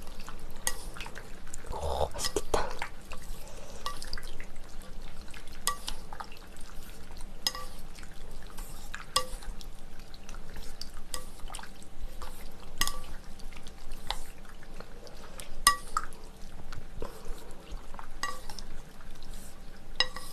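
Wooden chopsticks mixing wide Chinese glass noodles through a wet, spicy sauce in a bowl: irregular clicks and wet, sticky slaps as the noodles are lifted and turned.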